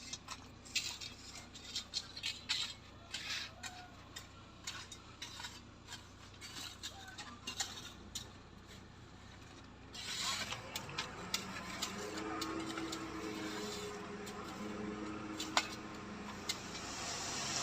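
Scattered metallic clicks and rattles, then about ten seconds in a heavy vehicle engine comes up in pitch and runs with a steady drone for several seconds before easing off.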